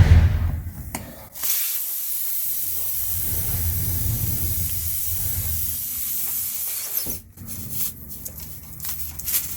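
Air hissing steadily out of a punctured car tyre through the screw hole as the repair tool is worked into it. The hiss starts about a second and a half in, after a low thump, and cuts off sharply about seven seconds in.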